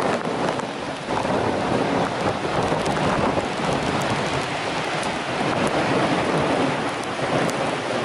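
Strong wind buffeting the microphone over the steady rush of a river in spate pouring over rocks, the noise dipping and swelling with the gusts.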